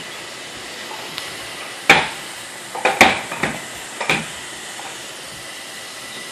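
Sharp knocks and clatters from a toddler's four-wheeled ride-on bike bumping over a hardwood floor, a handful of them through the middle seconds, over a steady hiss.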